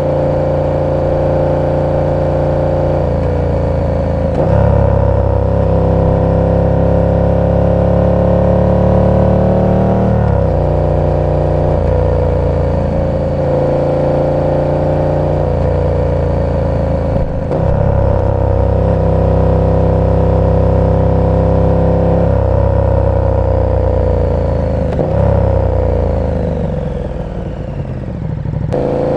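KTM 1290 Super Duke R's V-twin engine through an aftermarket exhaust, running in city riding: several rises and drops in revs from throttle changes and gear shifts, then revs falling near the end as the bike slows, and picking up again.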